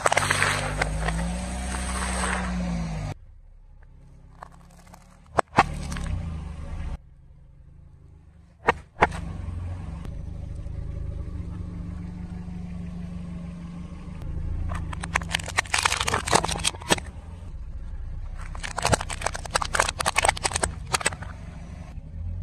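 A car tyre rolling slowly over objects and crushing them, over a low steady rumble of the car. At the start, foam bowls of cereal crunch under it; a couple of sharp single cracks follow; toward the end come two runs of dense crackling as a plastic alarm clock breaks apart.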